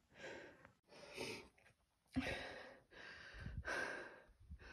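A hiker's heavy breathing while climbing a steep rocky trail, about five breaths in quick succession, with some low rumbling in the second half.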